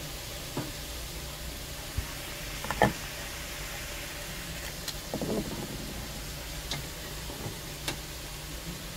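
A few clinks and knocks of pots and lids being handled on an electric stove, the sharpest about three seconds in and a short cluster in the middle, over a steady low hum.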